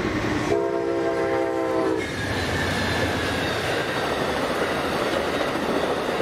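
A train horn sounds a chord once for about a second and a half, starting about half a second in, as a warning for the grade crossing. Then a passenger train of bilevel cars passes close at speed, a steady rush and rumble of wheels on rail with clickety-clack.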